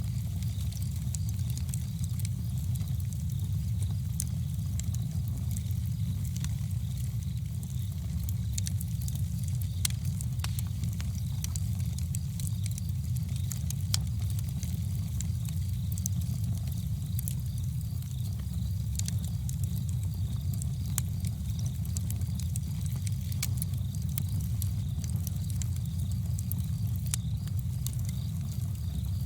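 Campfire burning, with frequent sharp crackles and pops over a steady low rumble.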